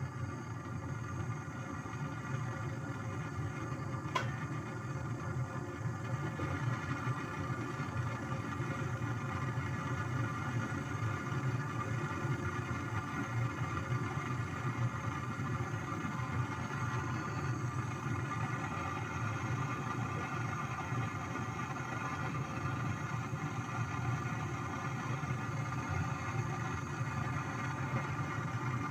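A small motor running with a steady hum, and a single sharp click about four seconds in.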